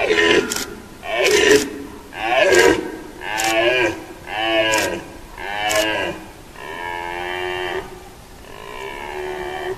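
Red deer stag roaring in the rut: a series of about eight deep roars, the first six short and loud at roughly one-second intervals, the last two longer and quieter.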